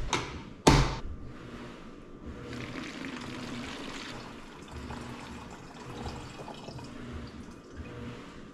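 Two sharp knocks less than a second apart as a plastic jug is set down on the counter, then, from about two seconds in, a steady pour of water from a Brita filter pitcher into a plastic gallon jug.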